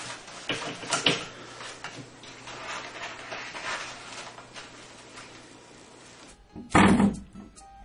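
Toilet paper rustling and the roll rattling on its metal wall holder as a kitten paws at it and pulls paper off, with scattered light clicks. Near the end, a loud sudden knock with a short ringing after it.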